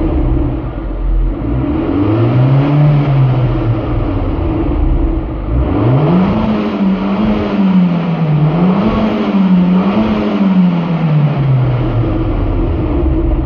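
Alfa Romeo Giulietta 1.4 turbo petrol four-cylinder engine with its stock exhaust, revving: the engine note rises and falls once about two seconds in, then climbs sharply about six seconds in, is held high with two small dips, and falls back near the end.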